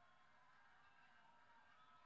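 Near silence: only a faint, steady hiss of room tone.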